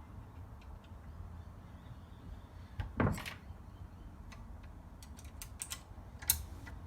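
Sharp metal clicks and knocks of small mower parts being handled as the clutch cable's eyelet is worked onto the pin at the top of the handlebars. There are two louder knocks, about three seconds in and near the end, with a run of lighter clicks between them.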